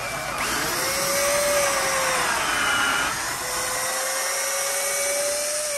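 Power drill running under load, boring a pilot hole into a pine board so the wood won't split when the large screws go in. The motor whine is steady, with its pitch dropping briefly about halfway through before it picks up again.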